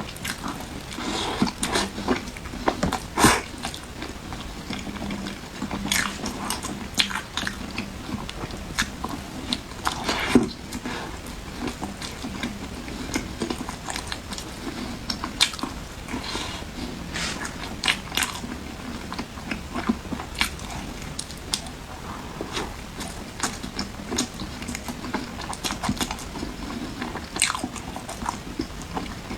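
A person biting and chewing crunchy food close to the microphone, with irregular sharp crunches throughout.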